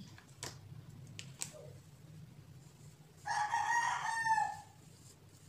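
A rooster crowing once, about three seconds in: a single call lasting about a second that falls away at the end. A couple of faint clicks come before it.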